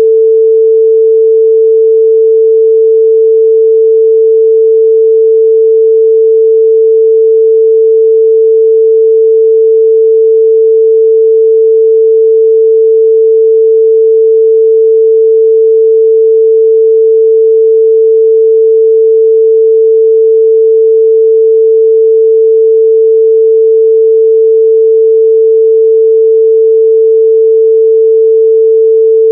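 Steady, loud 445 Hz pure sine test tone, a single unwavering pitch with no other sound.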